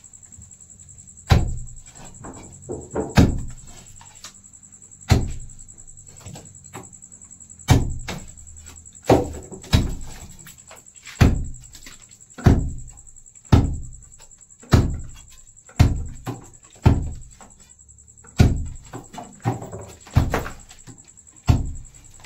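Heavy blows of a hand tool striking a brick wall, knocking bricks loose: about fifteen sharp thuds at an uneven pace of roughly one a second, each dying away quickly.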